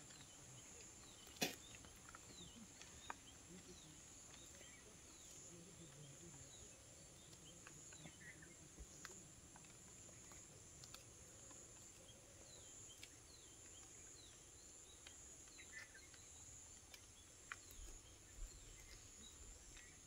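Faint outdoor ambience: a steady high insect drone with scattered faint bird chirps, and a few sharp clicks, the loudest about a second and a half in.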